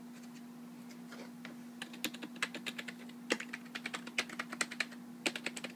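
Dell PS/2 keyboard's keys being pressed, faint clicks at first, then a quick, dense run of key clicks from about two seconds in with a few louder strokes among them. A steady low hum runs underneath.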